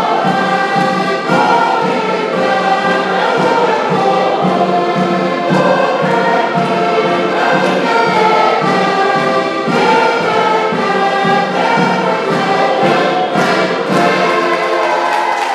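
Portuguese folk dance music: diatonic accordions play a lively tune over steady strokes of a large bass drum (bombo), with a group of voices singing along.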